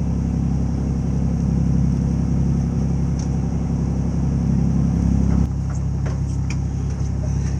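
Rescue boat's engine running steadily with a low rumble, easing back and getting quieter about five and a half seconds in.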